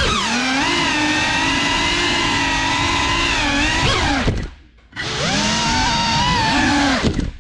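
Brushless motors and ducted propellers of a CineLog35 3.5-inch cinewhoop FPV drone whining, the pitch rising and falling with the throttle. A little past four seconds in the whine cuts out for about half a second, then comes back, with another short dip near the end.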